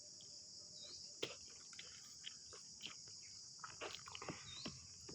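Faint, steady chirring of crickets, with a few soft clicks and taps scattered through it.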